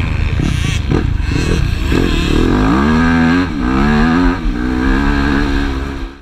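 Motocross bike engine heard close up from the bike, revving unevenly with throttle blips through a corner, then accelerating hard with rising pitch that drops back twice as gears change. The sound cuts off suddenly at the end.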